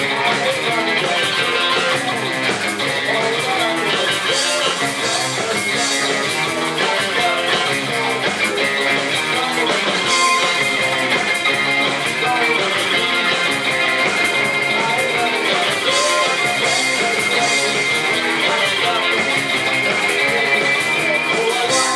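Rock band playing an instrumental passage on electric guitars and drum kit, with no singing.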